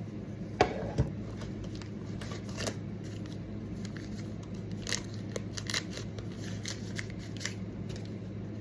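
Handling noise from small gear and its packaging: scattered sharp clicks and taps, the loudest two about half a second and a second in, over a steady low hum.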